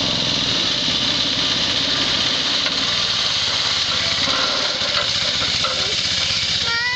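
Small engine of a homemade go-kart running steadily, with a fast low rhythmic beat.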